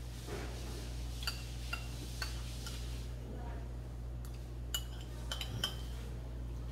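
Metal spoons clinking against bowls while eating, about half a dozen light, ringing clinks spread irregularly over the few seconds.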